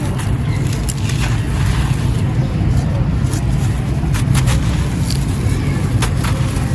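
Dry, crunchy red clay-like material crumbling and cracking, with scattered sharp snaps over a steady low rumble.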